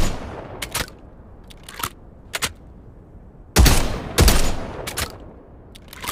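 Break-action shotgun: a few sharp clicks of the action being handled, then two loud shots about half a second apart, each with an echoing tail, followed by more clicks.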